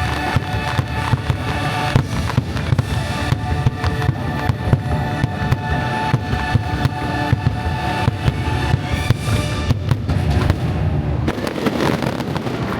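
Fireworks finale: a rapid, continuous barrage of firework bursts and deep booms over the show's orchestral soundtrack.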